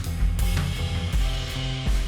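Background music: a song with bass, guitar and a steady drum beat.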